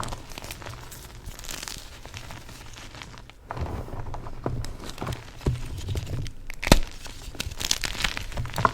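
Yellow-dyed BSN gym chalk being crushed up close: a run of crumbly crunching and crackling with many small cracks, a brief lull about three and a half seconds in, and one sharp, loud snap later on.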